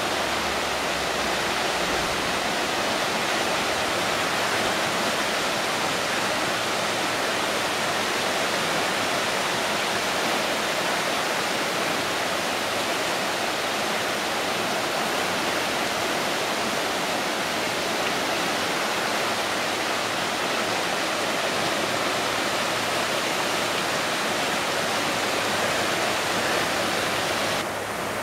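Rain-swollen creek in flood, fast muddy water rushing steadily, easing a little just before the end.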